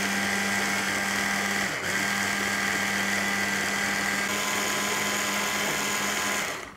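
Hand blender with a mini chopper bowl running steadily, whizzing basil, walnuts and olive oil into pesto. The motor briefly slows about two seconds in, then runs on and cuts off near the end.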